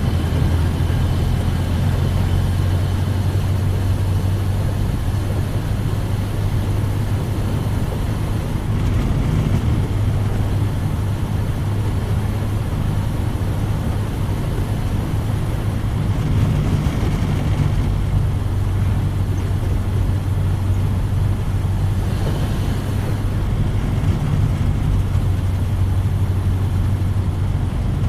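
1931 Ford Model A's four-cylinder flathead engine running at a steady pace as the car is driven, with a continuous low hum and road noise.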